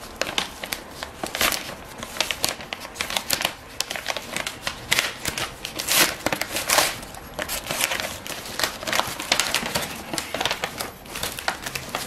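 Thin paper envelope being pulled and torn open by hand, the paper crinkling and rustling in irregular bursts, with a few louder crackles in the middle.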